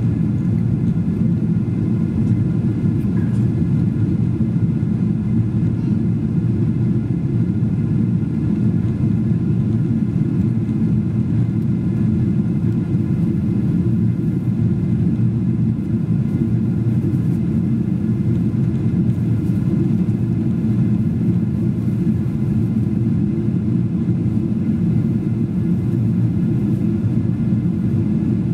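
Steady cabin drone inside a Boeing 777-200 airliner in its climb after takeoff: the low, even rumble of its twin turbofan engines and the airflow, heard from a window seat over the wing.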